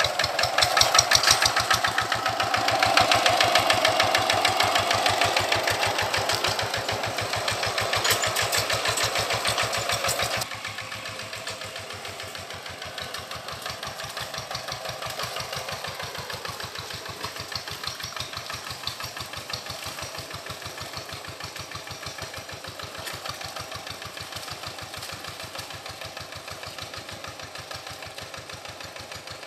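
Single-cylinder diesel engine of a Quick G1000 hand tractor chugging steadily. About ten seconds in, the sound drops suddenly to a quieter, more distant chug.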